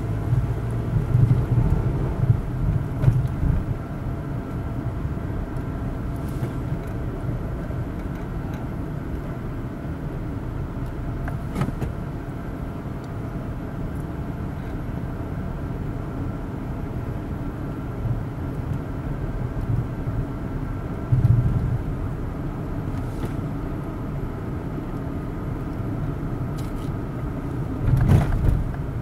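Road noise heard from inside a moving car's cabin: a steady low rumble of engine and tyres at city speed, with a few short low thumps, the loudest near the end.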